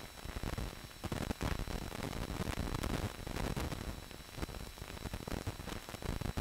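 Hiss and crackle of an old film soundtrack, with a few faint steady high tones running through it.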